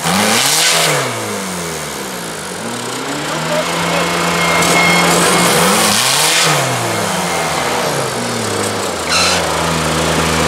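Off-road buggy engine revving hard and repeatedly, rising and falling and holding high revs in between, as the buggy churns its wheels bogged in deep mud. Two short loud rushes of noise come at the start and near the end.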